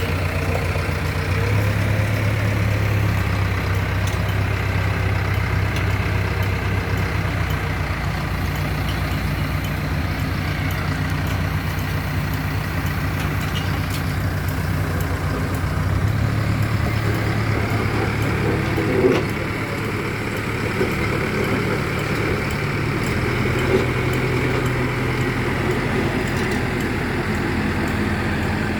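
Heavy diesel engine of road-construction machinery running steadily, its pitch stepping up and down a few times, with a couple of brief knocks.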